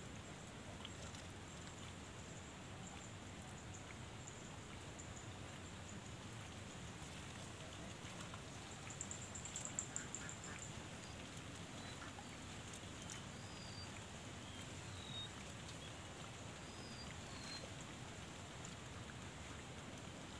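Faint outdoor ambience with a steady low hiss, a brief high, fast-pulsed trill about nine seconds in, and a few short, faint bird chirps in the second half.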